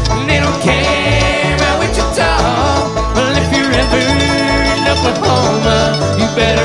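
Bluegrass string band playing live: quick plucked banjo and other string-band picking over a steady bass line of about two notes a second.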